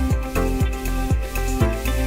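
Background music with a steady electronic beat, a kick drum about twice a second under held tones.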